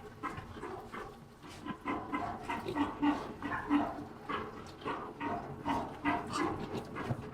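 Wild boar grunting in a run of short grunts, roughly two a second, starting about a second and a half in.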